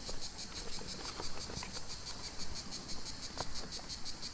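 Insects chirring: a high-pitched, steady, rapid pulsing of about ten pulses a second, with a few faint ticks underneath.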